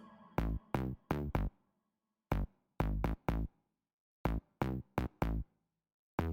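Electronic background music in a stop-start pattern: short pitched chord stabs separated by dead silences.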